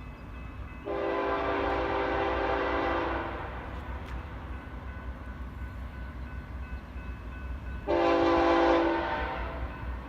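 Horn of a GE ES44C4 diesel locomotive leading a freight train: one long blast about a second in, then a shorter blast near the end. The locomotives' diesel engines rumble low underneath.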